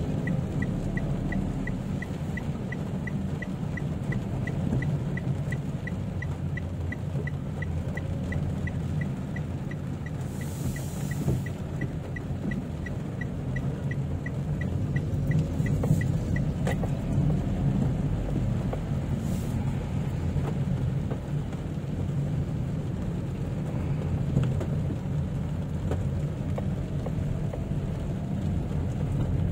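Cabin noise of a Toyota Wigo hatchback driving in heavy rain: a steady low rumble of engine and road noise. Over it, the turn signal ticks evenly, about three times a second, until it stops about 17 seconds in.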